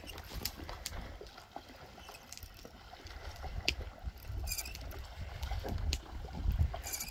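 Low wind rumble on the microphone, with scattered small clicks and knocks and two brief hissy bursts, one about halfway through and one near the end.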